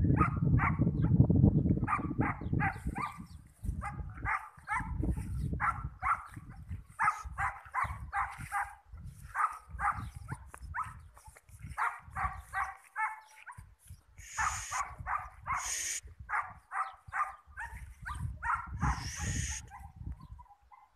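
A dog barking in long quick runs, about three or four barks a second, with short pauses between runs. A low rumble on the microphone comes and goes, strongest at the start.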